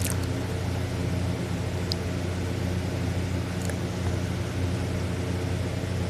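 Steady low mechanical hum that holds unchanged, with a few faint clicks.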